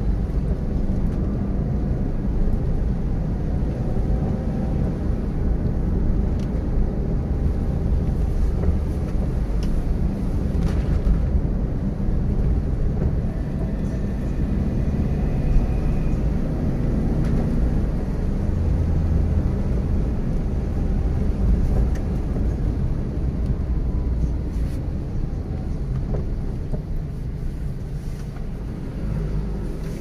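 Steady low rumble of a car's engine and tyres heard from inside the cabin while driving on a wet road.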